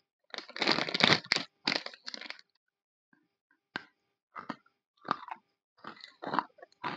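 A plastic biscuit packet crinkling for about two seconds as a bear-shaped chocolate shortbread biscuit is pulled out. After a short pause come crisp bites and crunchy chewing of the biscuit, about five separate crunches.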